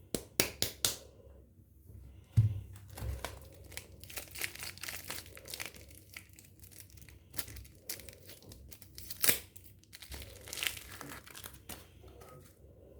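Soap packaging being unwrapped by hand: irregular crinkling and tearing of the wrapper, with scattered sharp clicks. There is a low thump about two and a half seconds in, the loudest sound, and a sharp click near the end.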